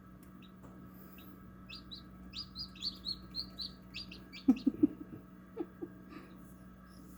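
Newly hatched chicks peeping: a quick run of short high peeps, then three short, louder low sounds about halfway through and a few more peeps, over a steady low hum.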